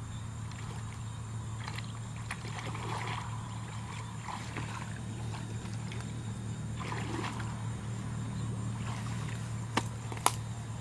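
Muddy water sloshing and splashing as hands and a hoe work in a shallow ditch, over a steady low hum. Near the end come two sharp knocks as the hoe strikes into the mud bank.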